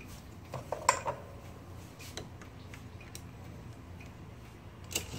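Scattered light clicks and taps from the metal parts of an Olivetti typewriter being handled during disassembly: a short cluster about a second in, a few single ticks after, and a sharper click near the end.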